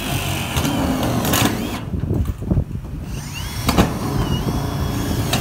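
Milwaukee M18 cordless drills driving self-drilling screws into corrugated metal roofing sheets: short rising motor whines with sharp knocks on the sheet metal.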